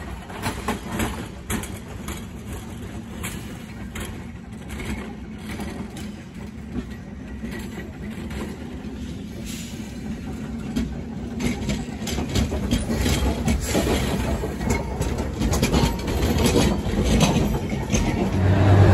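Pittsburgh streetcar PRT car 4398 approaching and passing close by, its steel wheels clicking and knocking over the track, the rumble growing steadily louder. A low steady hum comes in near the end.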